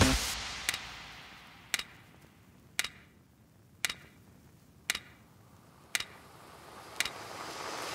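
A clock-like ticking sound effect: seven sharp ticks, evenly spaced about one a second. Background music fades away at the start and a faint swell builds near the end.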